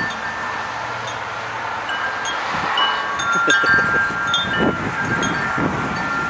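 Wind chimes ringing in a breeze, several overlapping sustained tones, with wind gusting on the microphone about halfway through.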